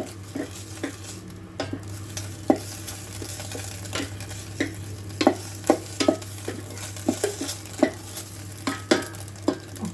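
Egg bhurji (scrambled eggs) sizzling in a heated electric kettle while a utensil stirs them, knocking and scraping against the kettle's inner pot in irregular clicks. A steady low hum runs underneath.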